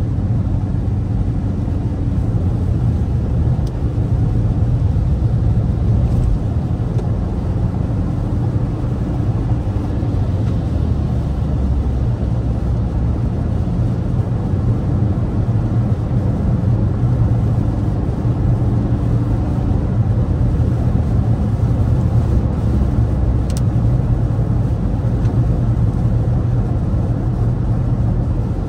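Steady low rumble of a car's tyres and engine heard from inside the cabin while driving at highway speed on rain-wet pavement.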